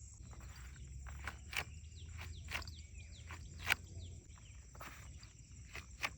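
A run of irregular sharp clicks and snaps, the loudest a little before the middle, over a steady high-pitched insect drone and a few quick falling chirps.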